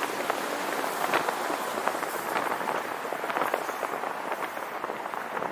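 Steady road and wind noise from a moving car, with a constant crackle of wind buffeting the camera's microphone.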